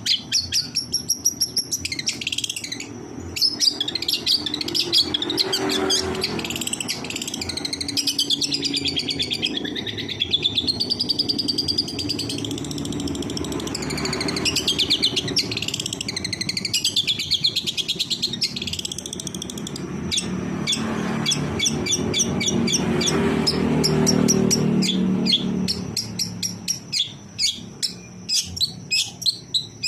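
Long-tailed shrike (cendet) singing a continuous, varied song of warbled phrases and rapid chattering notes, with fast staccato series near the start and again near the end. A low rumbling background runs beneath it, strongest about two-thirds of the way through.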